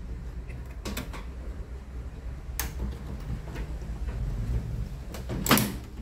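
Scattered clicks and knocks of hands handling wiring and connectors inside the opened metal casing of a microwave oven, near its door microswitches. The loudest knock comes about five and a half seconds in. A low steady rumble runs underneath.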